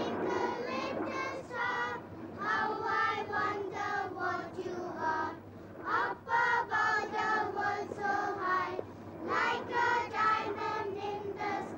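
A child's voice singing a melody in phrases with short breaks between them.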